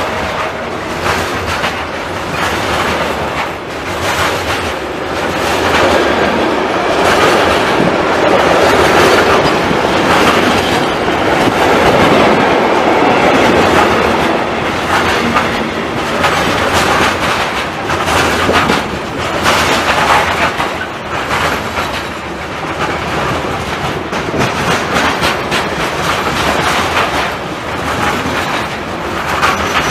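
A train passing close by, its wheels clicking rhythmically over the rail joints amid steady rolling noise, loudest a little before the middle.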